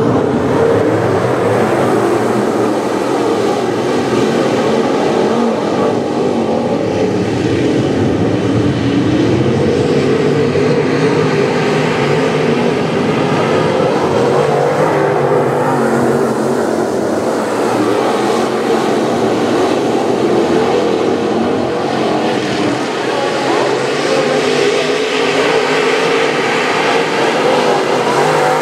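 A pack of dirt late model race cars running at racing speed together, their V8 engines making a loud, steady, continuous sound.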